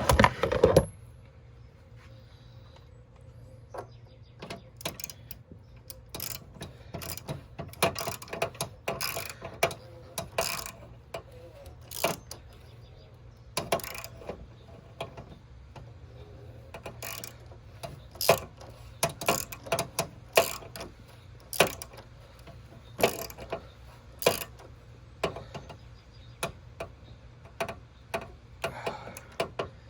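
Hand ratchet wrench clicking in short, irregular strokes as a fastener is tightened, after a louder metallic clatter right at the start.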